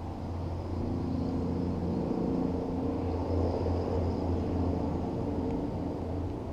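Engine hum of a passing motor vehicle, swelling about a second in and fading near the end, over a steady low hum.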